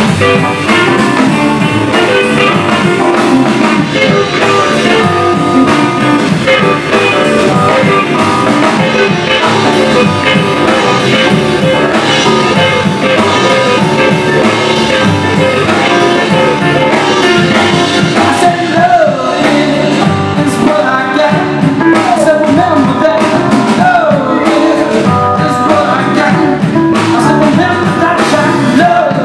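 A blues-rock band playing live, with electric guitar, bass, keyboard and drum kit under a singing voice.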